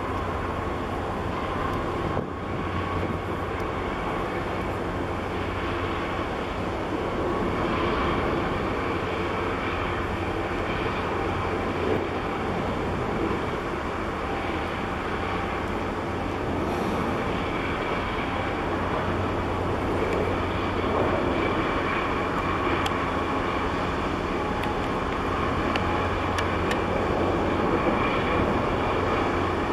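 Steady low diesel engine drone from a large container ship and the tugboat working alongside it as they pass close by, with a faint steady whine above it.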